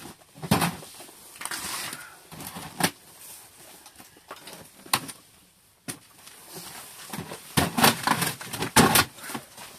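Scattered knocks, rustles and crinkles of food, plastic bags and mugs being handled on a small table, with a dense cluster of them near the end.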